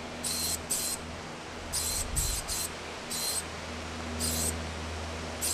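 Aerosol spray-paint can hissing in short bursts, about eight in a few seconds and each a fraction of a second long, as lines are painted onto a freight car, over a steady low hum.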